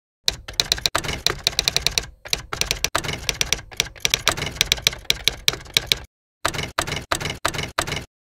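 A rapid, uneven run of sharp clicks, several a second, broken by a few short pauses and cutting off suddenly near the end.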